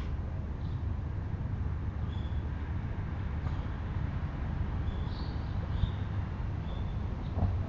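Steady low outdoor rumble, like distant traffic, with a few faint high chirps and a soft knock near the end.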